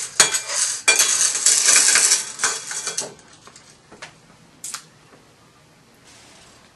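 Nails and screws rattling and clinking in a bowl as a spoon scoops through them, a dense clatter for about three seconds, then a couple of single clinks.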